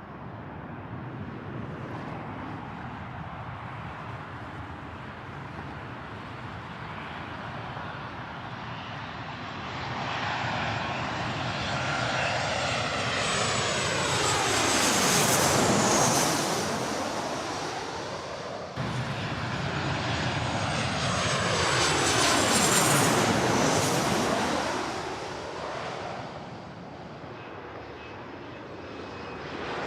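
Large jet airliners flying by overhead, two passes: a steady engine rush swells to a loud peak about halfway through with a high whine over it and fades, then after an abrupt cut a second pass swells, peaks and dies away near the end.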